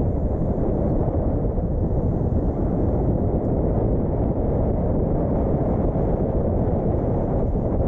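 Steady low rumble of a car driving, the road and wind noise of the moving vehicle.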